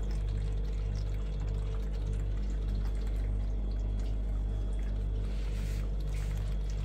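Water running and trickling into a stainless-steel sink, over a steady low electrical hum.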